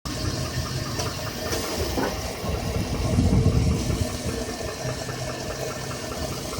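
2007 Chevrolet Avalanche V8 engine idling with a steady, rapid ticking from inside the engine, which the owner suspects is engine knock or piston slap. A louder low rumble swells briefly in the middle.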